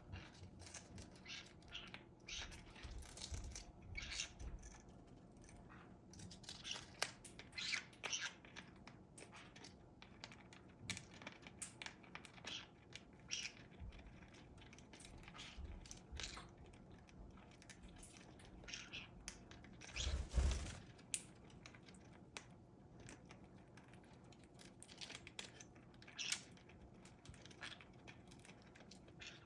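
Green-cheeked conure scuffling and playing at close range: irregular small clicks, scratches and rustles, with a louder scuffle about two-thirds of the way through.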